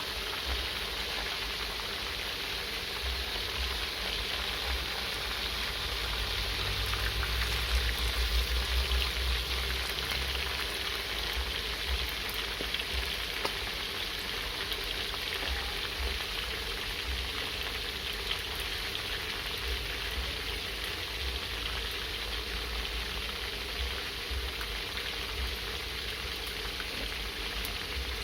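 Meat frying in hot oil: a steady sizzle with many small crackles and pops. A low rumble swells for a few seconds near the middle.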